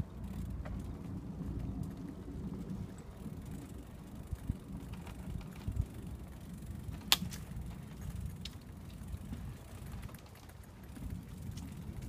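Bicycle rolling along a boardwalk: a steady low rumble from the tyres running over the planks, with scattered light clicks and one sharp click about seven seconds in.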